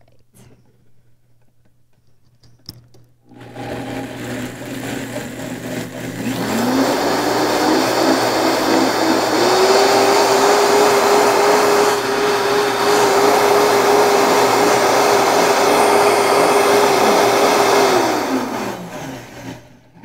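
High-powered countertop blender pureeing slivered almonds and water into almond milk. It starts about three seconds in at a lower speed, steps up in speed twice with its motor pitch rising each time, runs steadily at full speed, then spins down with a falling pitch near the end.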